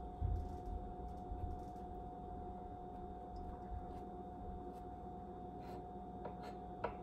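Kitchen knife cutting soft omelet egg white on a wooden cutting board, with a few light taps of the blade on the board near the end, over a steady background hum.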